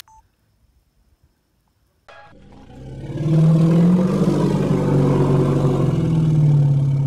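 Logo-intro sound effect: a loud, low, steady pitched drone like a revving engine. It fades in about two seconds in, swells over a second and then holds.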